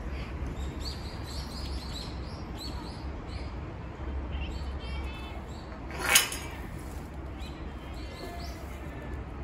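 Small birds chirping repeatedly, with a couple of short rapid trills, over a steady low rumble. About six seconds in there is a single loud, brief rushing hiss, the loudest sound here.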